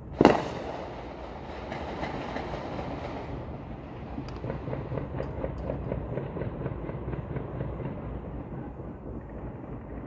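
Fireworks going off: one loud bang just after the start with a long echoing tail, then several seconds of rapid crackling pops.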